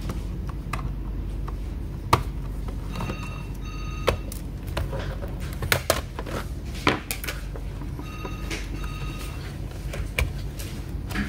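Small clicks and knocks of hands working inside an opened laptop while reseating RAM modules. An electronic ring in short pulses sounds twice, about three seconds in and again about eight seconds in.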